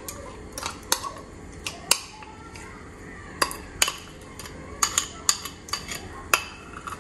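A spoon clinking and scraping against a bowl and a saucepan as rice cakes and sauce are scraped into the pot. There are a dozen or so sharp, irregular clinks.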